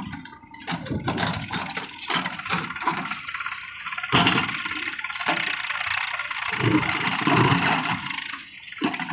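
JCB 3DX backhoe loader's diesel engine running while its backhoe bucket digs into dry, stony ground, with irregular knocks and clatter throughout.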